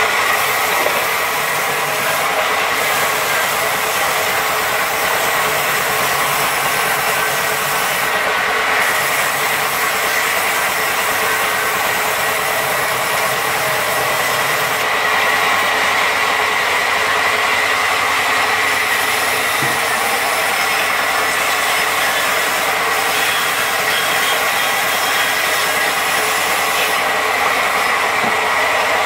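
Large sawmill band saw running steadily and cutting through a log, a continuous loud machine noise with a high whine held over it.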